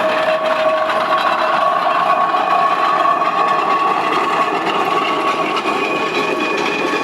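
Geared steam logging locomotive working, a fast rapid mechanical chuffing and clatter with a steady high-pitched tone sounding over it.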